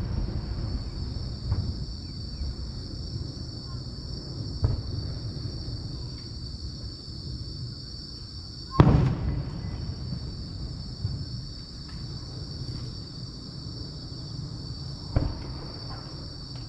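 Aerial firework shells bursting at a distance: one loud boom with a rumbling tail about nine seconds in, and smaller bangs near the start, about five seconds in, and near the end. A steady high insect trilling runs underneath.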